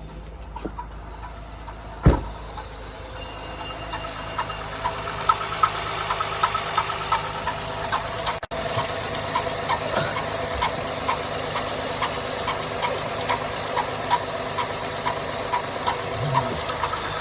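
Acura TL's 3.7-litre V6 idling with a regular tapping, about two to three taps a second: an engine fault the dealership could not identify. A single thump about two seconds in.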